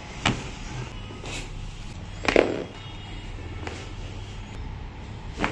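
Several sharp cracking pops of joints being manipulated in chiropractic adjustments, the loudest about two seconds in, over background music.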